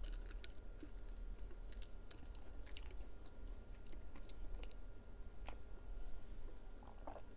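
Close-miked chewing: irregular wet mouth clicks and smacks.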